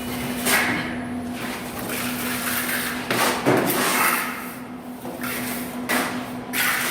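Steel plastering trowel scraping and sliding over fresh mortar on a wall in repeated strokes, a second or so apart, with a steady low hum underneath.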